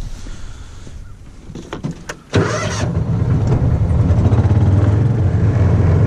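A farm utility vehicle's engine starting: a few clicks, then the engine catches suddenly about two seconds in and runs steadily as the vehicle drives off.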